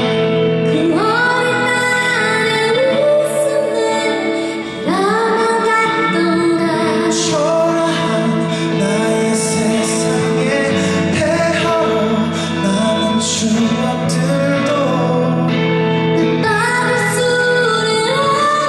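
Female vocalist singing a slow Korean ballad, with sliding, sustained notes over steady instrumental accompaniment.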